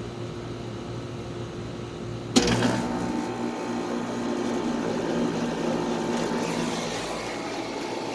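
Carrier WeatherMaker TECH2000 central air conditioner outdoor unit starting up: a low steady hum, then about two and a half seconds in it kicks on suddenly and runs on, louder, with a steady compressor hum and rushing air.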